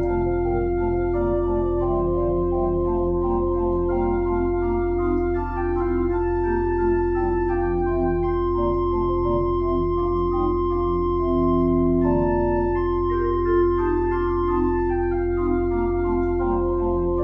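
Church organ playing a slow piece of long, overlapping notes, with one note held throughout.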